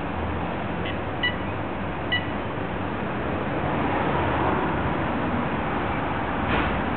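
Short electronic beeps from the Etac e890 power wheelchair's controls, a faint one then two clearer ones about a second apart, over a steady hiss.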